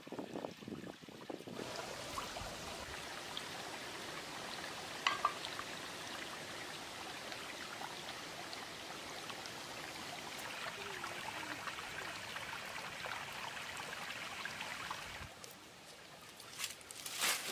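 Shallow stream running over rocks: a steady rush of water, with a couple of sharp knocks about five seconds in. About fifteen seconds in the water sound drops away, and a few sharp clicks follow near the end.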